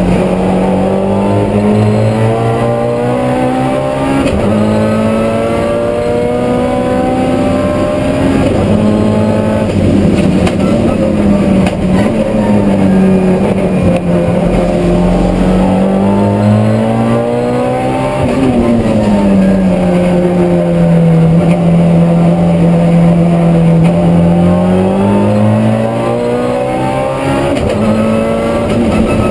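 Race car engine heard from inside the cockpit under hard driving. Its note rises and falls through the gears and corners, with a sharp dip and climb about eighteen seconds in.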